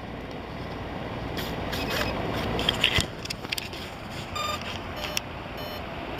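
Handling rustle, with a few sharp clicks about three seconds in as the flight battery is plugged into the RC jet's electronics, then a short electronic beep from the speed controller a little after four seconds.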